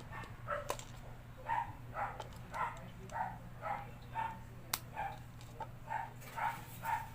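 Dog barking over and over, about two barks a second, over a steady low hum, with one sharp click about halfway through.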